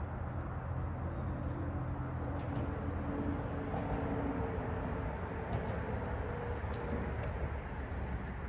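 Steady low rumble of road traffic, with the drawn-out hum of passing engines rising and fading through it.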